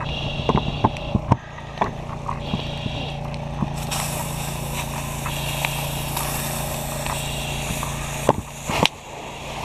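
A fire hose nozzle spraying water, a steady loud hiss that starts about four seconds in, over the steady hum of an engine running. A few sharp clanks of gear come in the first two seconds, and two louder knocks come just after eight seconds.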